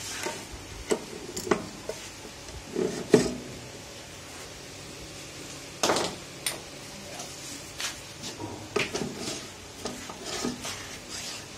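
Stainless-steel parts of a code printing machine's paste ink assembly clinking and knocking as they are handled and fitted by hand: irregular sharp clicks and knocks, the loudest about three seconds in and another about six seconds in.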